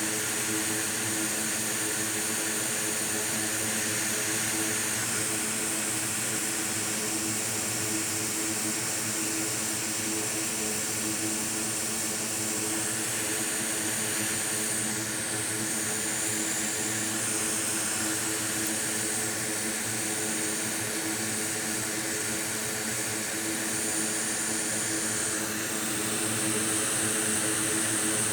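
Hot air rework station blowing steadily: an even rush of air with a high whistle that shifts in pitch a few times, heating parts on a MacBook logic board to clear a short.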